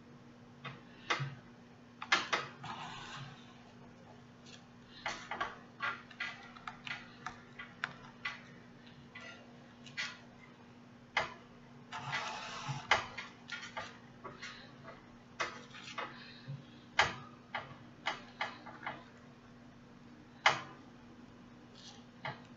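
Irregular clicks and short rustles of hand-sewing a lace frontal onto a weaving cap: needle and thread pulled through the lace and cap, and fingers handling the curly hair. A faint steady hum runs underneath.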